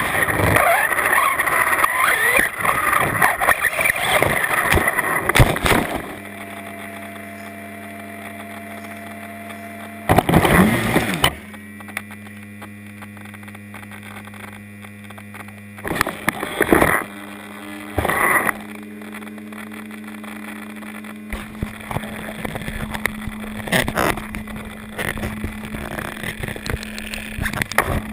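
Onboard sound of a Traxxas Slash 4x4 RC truck with a brushless motor. The motor whine rises and falls with the throttle for about six seconds, ending in a sharp knock as the truck crashes. It then lies upside down with a steady low hum, broken by a few short bursts of motor whine. Near the end come rustling and knocking as it is set back on its wheels.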